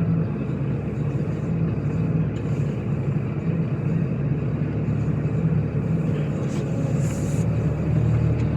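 Car's diesel engine idling to warm up, a steady low hum.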